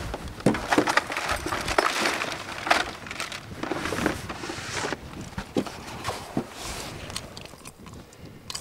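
Handling noises as a northern pike is unhooked with a metal jaw spreader and pliers: scattered sharp metal clicks and rustling, thickest in the first half and thinning out later.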